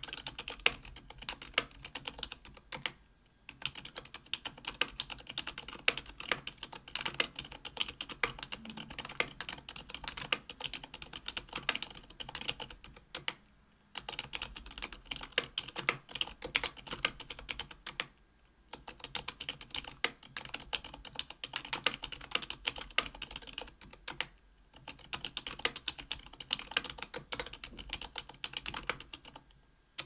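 Continuous typing on a JetStorm mechanical keyboard with lubed Aqua Zilent silent tactile 67 g switches, an aluminium plate and GMK keycaps: a dense run of rapid keystroke clicks, broken by a few brief pauses.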